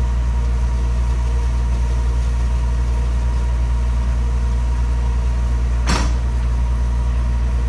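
An engine idling steadily with a low, even hum. A single sharp knock comes about six seconds in.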